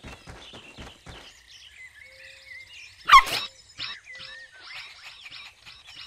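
A cartoon puppy's single short bark about three seconds in, followed by a string of short chirps. Before the bark, for about the first second, quick regular taps at about five a second, like running footsteps.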